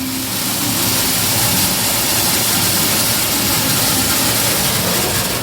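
A loud, steady rushing noise with no distinct tones or rhythm, like a jet-engine roar.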